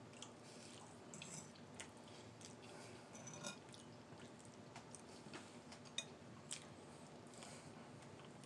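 Faint chewing and wet mouth sounds of a man eating a mouthful of ramen noodles, with scattered small clicks, the sharpest about six seconds in.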